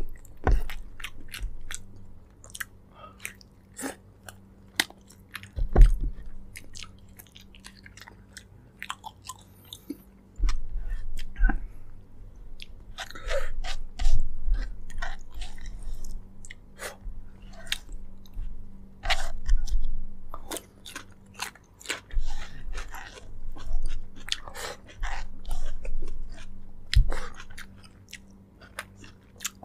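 Close-miked chewing and biting of braised pork leg: many short wet clicks and smacks in uneven clusters. There are two low thumps, one about a fifth of the way in and one near the end.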